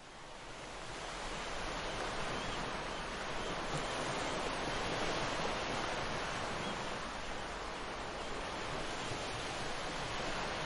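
Ocean surf, a steady wash of waves fading in over the first couple of seconds, then holding with slight swells.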